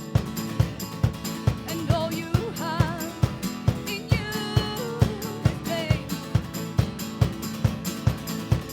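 A pop-rock band playing an instrumental passage with no singing: a drum kit keeps a steady beat under bass and a wavering lead melody, on a lo-fi tape recording.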